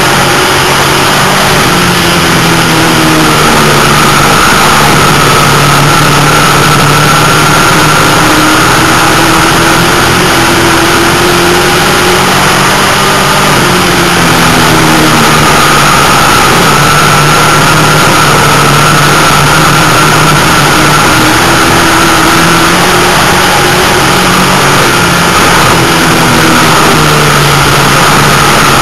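Dirt-track race car's engine running hard at race pace, very loud from inside the cockpit, its pitch rising and falling slowly as the car goes down the straights and through the turns.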